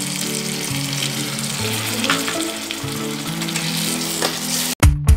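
Onion-tomato masala sizzling in hot oil in a steel kadai as a yogurt mixture goes in and a metal spatula stirs it. Soft background music runs underneath, and near the end it cuts suddenly to louder music with regular drum and plucked-string strikes.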